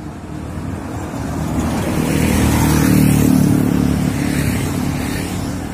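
Large coach bus driving past at speed. Its diesel engine and tyres swell to a peak about three seconds in, then fade as it pulls away.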